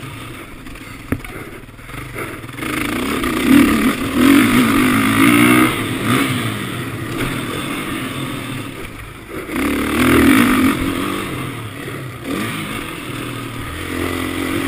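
Suzuki RM-Z450 four-stroke single-cylinder motocross bike engine revving hard and easing off in repeated surges as it is ridden round the track. The revs peak about four seconds in, again around ten seconds and near the end, with quieter dips between.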